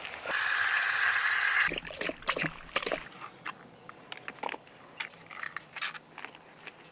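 A rush of running water for about a second and a half, cutting off sharply, then scattered light clicks and rustles of small things being handled.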